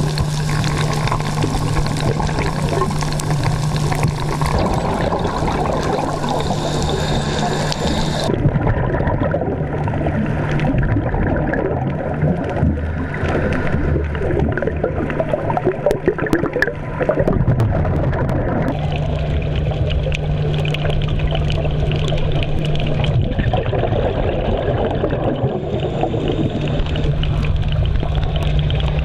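Underwater sound picked up through a camera housing: a steady wash of water noise with a low, steady hum, and some irregular bubbling surges around the middle.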